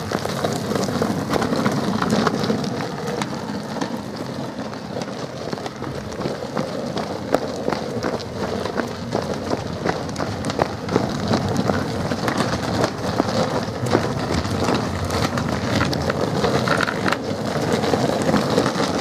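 Longboard wheels rolling fast over a rough, gritty tarmac lane: a steady rumble with many small clicks and crackles from grit and cracks under the wheels.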